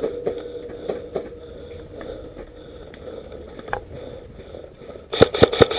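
Faint rustling and scuffing, then near the end a rapid string of airsoft gun shots, sharp cracks at about seven a second.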